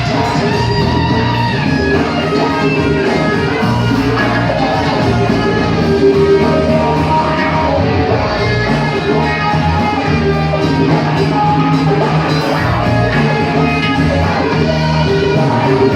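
Rock band playing live, guitars to the fore over bass and drums, loud and continuous.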